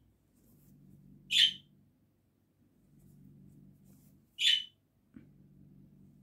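Embroidery thread drawn through the weave of a cross-stitch towel: two short swishes about three seconds apart, one per stitch, over a faint low hum, with a small click near the end.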